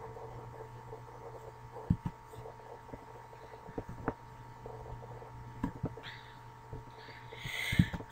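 Faint steady electrical hum of a recording setup, with scattered soft thumps and clicks, and a breath drawn in near the end.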